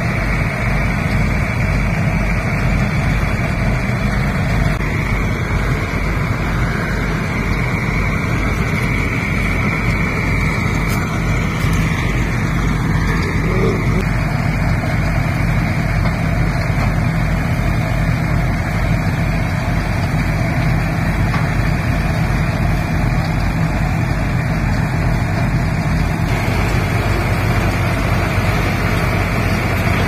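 ACE tractor's diesel engine and the tractor-mounted Punni Grain Cruiser combine thresher running steadily under load as bundles of dry crop stalks are fed in.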